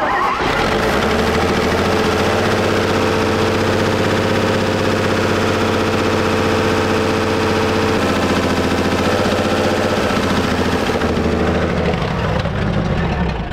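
The old inline-six engine of a World War II Chevrolet truck runs steadily after years of sitting. Its note shifts slightly after about eight seconds.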